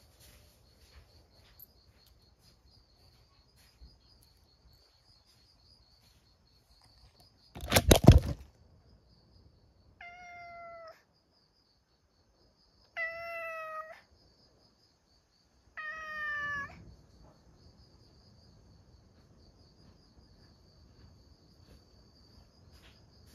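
A loud, brief thump, then a cat meows three times about three seconds apart, each call about a second long and falling slightly in pitch, over steady high-pitched cricket chirring.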